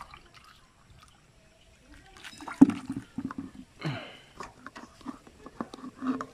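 Water poured into a metal knapsack sprayer's tank and sloshing in it. About two seconds in come a run of knocks and clatter, the loudest early in the run, as the filter strainer in the tank's fill opening is handled.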